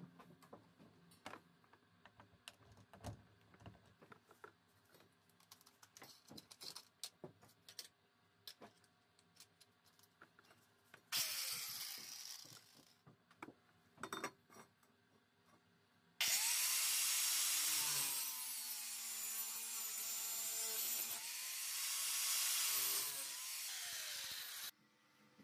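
Light knocks and clicks of copper pipe being handled on a wooden bench, then an angle grinder with a cut-off disc cutting through the copper pipe: a loud steady grinding whose motor pitch dips and wavers as the disc bites, cutting off suddenly near the end. A shorter grinder burst, fading out over a couple of seconds, comes about halfway through.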